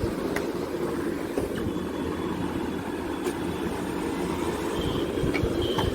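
Small electric air pump of an opened digital blood pressure monitor running with a steady hum, with a few light clicks.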